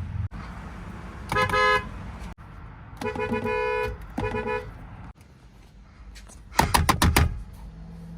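Nissan/Infiniti car horns honking: a couple of short two-tone beeps, then a longer honk about three seconds in, then another short beep. About six and a half seconds in comes a loud burst of rapid sharp blasts.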